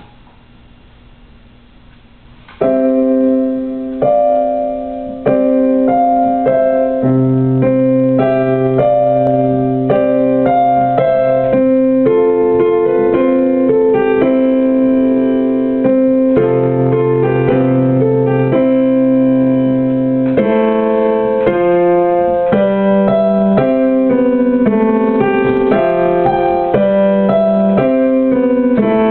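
Piano playing a slow melody over chords and held low bass notes, coming in about two and a half seconds in after a moment of faint hiss.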